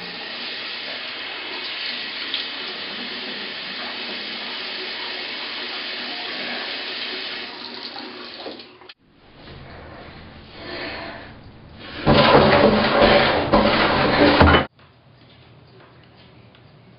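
Tap water running into a sink as hands are washed, steady for about nine seconds before it stops. About twelve seconds in, a much louder rushing noise lasts a few seconds and cuts off suddenly, leaving a faint hiss.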